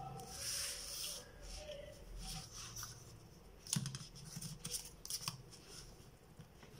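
Paper and a plastic ruler handled on a table: a rustle as the drawing sheet is slid and turned, then a few sharp clicks and taps, loudest about four seconds in, as the ruler is set down and lined up.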